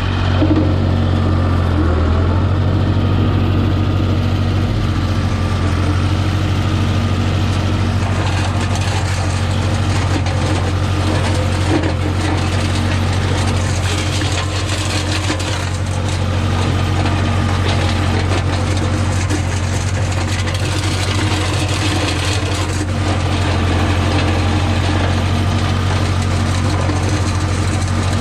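Tractor engine running steadily, with the rough noise of a mulcher chopping vine prunings.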